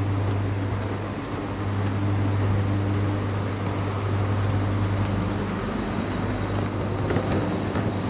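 A steady low hum over a constant background noise, like a running machine or motor.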